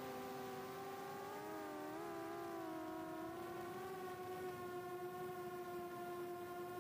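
Motors and propellers of a 4-inch FPV quadcopter (HGLRC 1303.5 4500kv brushless motors), heard from its onboard camera: a steady pitched whine whose pitch wavers and dips over the first couple of seconds, then holds level.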